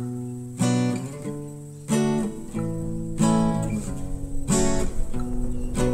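Background music: a strummed acoustic guitar playing chords, a fresh strum about every second and a third, each one fading before the next.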